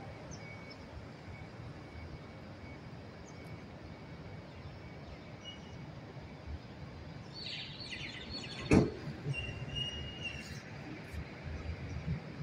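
Steady low hum of city street traffic, with a few high chirps a little before the middle and one sharp click about nine seconds in, the loudest sound, followed by a brief high whistle-like tone.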